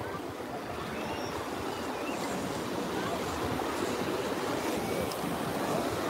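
Small sea waves washing and sloshing in the shallows around the camera, a steady wash that grows slightly louder.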